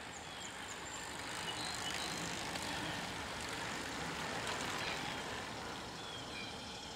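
A vehicle passing on the road, its noise swelling for a few seconds and then fading, with birds chirping.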